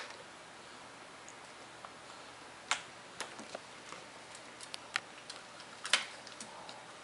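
Scattered sharp clicks and taps, a second or more apart, from small dogs' claws on a slate tile floor as they pick up dropped rice-rusk crumbs.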